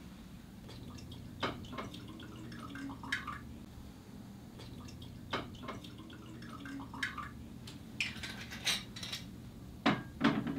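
Glass clinks and taps of a liquor bottle and glasses being handled on a table, with liquor poured into a glass. The clinks come singly and irregularly, several of them, with a cluster near the end.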